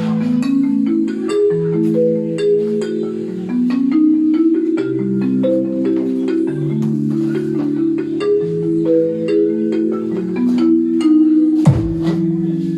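Instrumental dance-remix music played through a full-range loudspeaker: held mallet-like keyboard notes step through a melody over a steady pulse, with a sharp hit and a deep falling bass sweep near the end.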